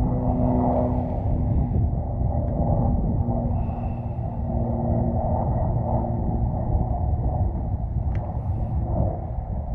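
Steady low rumble of wind on the microphone, with a faint steady hum in the first few seconds and a single faint click about eight seconds in.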